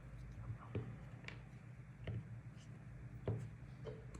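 Scattered light clicks and taps, about five in four seconds, of small battery parts being handled and set in place by hand.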